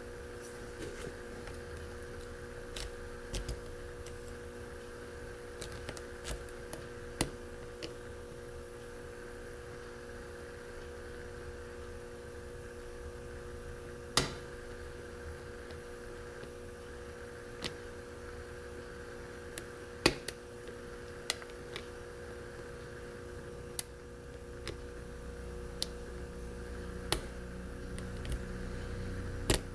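Lock pick and tension wrench working the pins of a mortise lock cylinder: scattered, irregular sharp metallic clicks and faint scraping, a few clicks louder than the rest, over a steady low hum.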